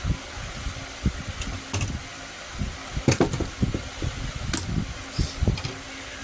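A fan running steadily with a low electrical hum, under irregular knocks and a few sharp clicks.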